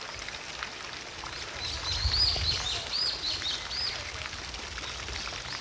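A small songbird calling a quick series of short, arched high notes between about one and a half and four seconds in, over the steady faint splash of a distant garden fountain.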